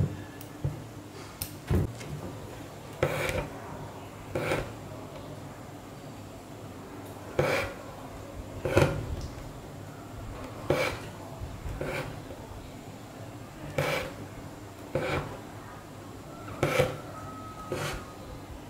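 Needle and embroidery thread being pulled through taut fabric during long and short stitch, a short noisy stroke with each pull, irregularly every second or two. A small sharp snip right at the start as embroidery scissors trim the thread.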